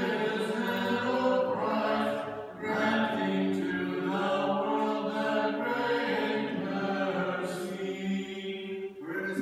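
Orthodox liturgical chant of the antiphons, sung a cappella in long held phrases. The singing breaks briefly a little over two seconds in and again near the end.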